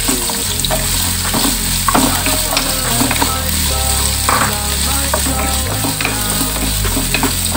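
Julienned carrots and garlic sizzling in hot oil in a nonstick wok, stirred and tossed with a wooden spatula, with a steady frying hiss and scattered scraping clicks.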